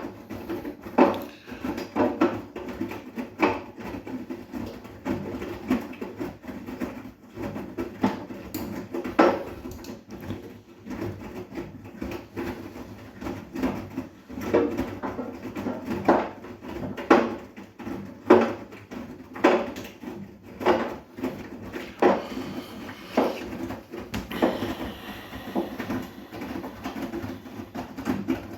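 Bosch WGA252Z0TR front-loading washing machine running a wash: the drum turns with a steady hum while the laundry drops in it with irregular thuds about once every second or so.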